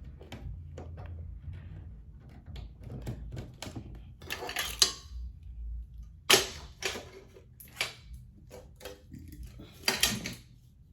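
Small objects clicking and knocking as they are moved around on a cluttered stand, with a few louder clattering knocks: one a little over 4 seconds in, one about 6 seconds in and one about 10 seconds in.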